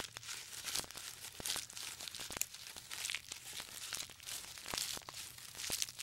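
Giraffe tearing at a hung bundle of leafy branches: faint rustling and crackling of leaves and twigs, with many small crisp snaps at irregular intervals.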